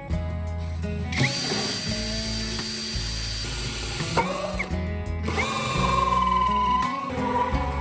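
A handheld electric power tool, like a drill, running in two bursts of about three seconds each with a steady whine, the second lower in pitch. Background music plays throughout.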